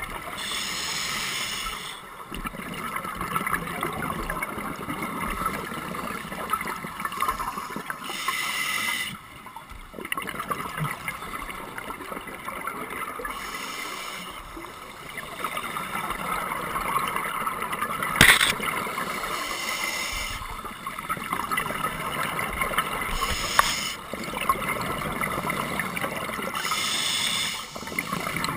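Underwater recording of a scuba diver's regulator breathing: a steady bubbly hiss with a burst of exhaled bubbles every few seconds, and one sharp knock about two-thirds of the way through.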